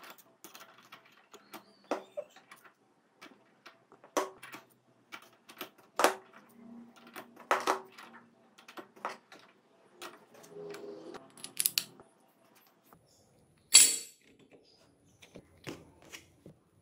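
Steel and friction clutch plates of a Bajaj three-wheeler engine clinking against each other and the clutch hub as they are stacked by hand, in a string of separate light clicks with one sharper clack a little before the end.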